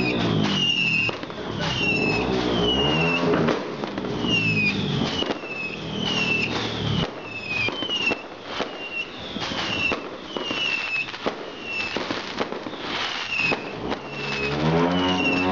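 New Year fireworks and firecrackers cracking and banging in quick succession, with a high whistle that falls in pitch, repeated about once a second. A loud low drone rises and falls during the first second and again near the end.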